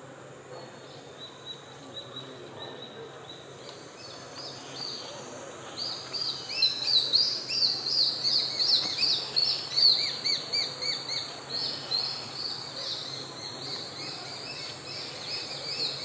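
Juvenile Japanese sparrowhawks calling: a fast series of high, repeated notes that starts about six seconds in, is loudest for the next few seconds, then grows fainter.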